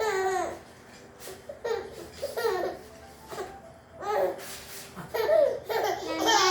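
A small child laughing in repeated short, high-pitched bursts with brief pauses between them, the bursts coming closer together near the end.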